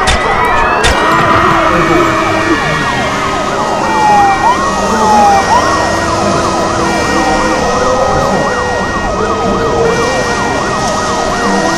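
A loud din of many emergency-vehicle sirens sounding at once, their wails and yelps rising and falling over one another without a break. Two sharp clicks come in the first second.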